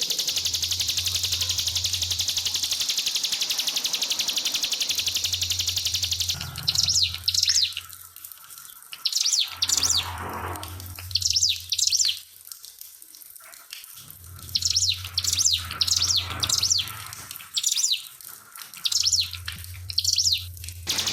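Ciblek pinus (prinia) song: rapid, high-pitched chattering phrases delivered in short bursts with brief pauses, starting about six seconds in. Before the song there is a steady hiss of trickling water, and a low hum comes and goes.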